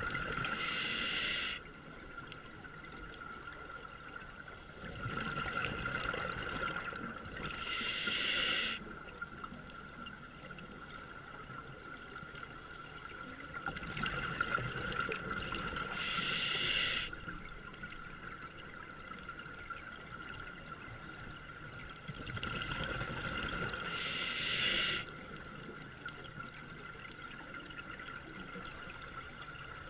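Scuba diver breathing through a regulator underwater: four slow breath cycles about eight seconds apart, bubbling, each ending in a hiss that cuts off sharply. A faint steady whine runs underneath.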